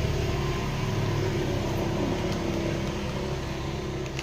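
An engine running steadily with a low hum, slowly fading.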